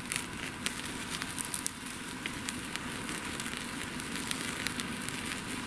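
Open wood fire crackling, with sharp pops at irregular intervals.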